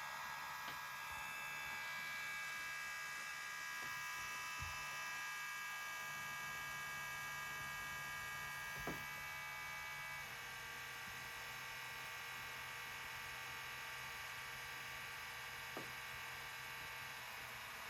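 DJI Air 2S drone powered on, giving a steady high whine made of several tones together, over a low hum. The pattern of tones shifts about ten seconds in, with a few faint clicks along the way. The owner thinks it may be a broken internal fan.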